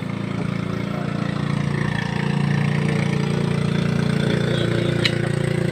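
Outrigger bangka boat's engine idling with a steady hum that grows a little louder about two seconds in, and a single sharp click near the end.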